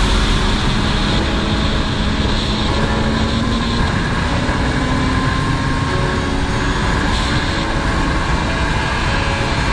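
Honda CBR400RR's inline-four engine running at road speed, heard under heavy wind and road noise on the microphone.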